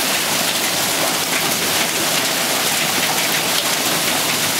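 Hail and rain pelting pavement and parked trucks: a dense, steady patter of small hailstones that does not let up.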